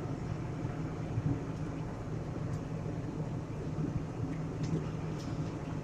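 John Deere 8770 tractor's diesel engine running steadily under the work of packing silage, heard from inside the closed cab as an even, low hum.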